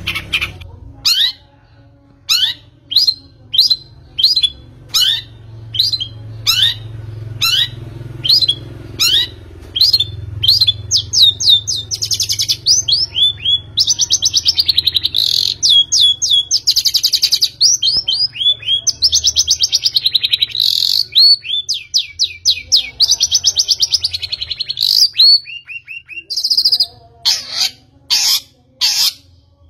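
A bird chirping: a long series of short chirps, each sliding down in pitch, several a second, broken from about ten seconds in by longer rapid trills.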